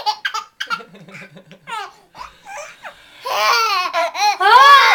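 A baby laughing in response to fake sneezes: a few short bursts, then about three seconds in a long run of loud, high-pitched belly laughs that swoop up and down in pitch.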